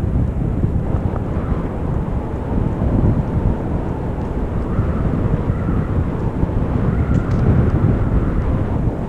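Steady low rumble of wind buffeting the microphone while riding a bicycle.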